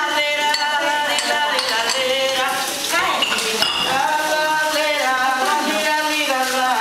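People singing together with long held notes while washing up, with dishes and cutlery clinking now and then under the song.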